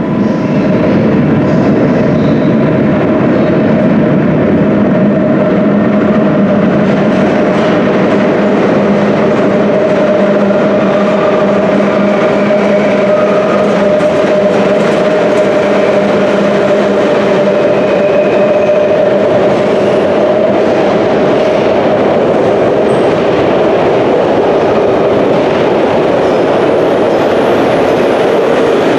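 London Underground battery-electric locomotives hauling an engineering train through a tube tunnel station. They run loud and steady, with a held drone and wheels clacking on the rails. The train comes in with its lights on and runs past the platform near the end.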